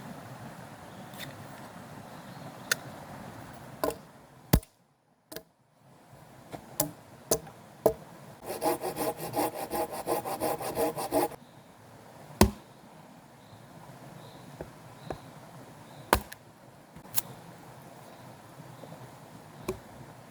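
Scattered sharp wooden knocks and clatters, with about three seconds of fast, rhythmic rasping strokes midway through. The loudest knocks come a few seconds in and again about twelve seconds in.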